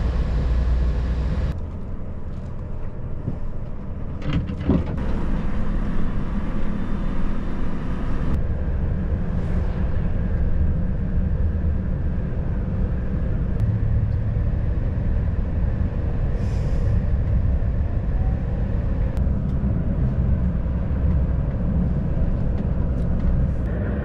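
Inside the cab of a Volvo FH540 truck on the move: its 13-litre six-cylinder diesel engine and the road noise make a steady low rumble. The character of the noise changes abruptly about 1.5 and 8 seconds in.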